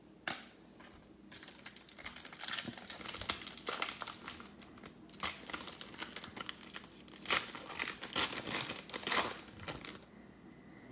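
Wrapper of a football trading-card pack crinkling and tearing as it is ripped open, in irregular rustles with short pauses.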